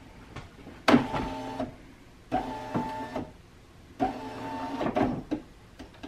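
Tesla Model S power window motor driving the door glass down in three short runs of about a second each, each starting abruptly and holding a steady whine.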